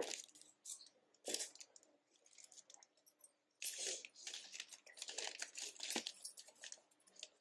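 Plastic courier mailer bag being torn open and crinkled by hand, in faint irregular bursts that come more densely in the second half.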